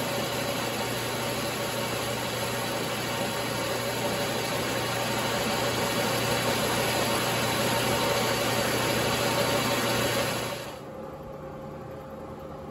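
Logan 922 metal lathe running while the tool faces off the end of a metal bar, a steady machine hum with a constant tone over the cutting noise. Near the end the cutting sound stops and only a quieter hum is left.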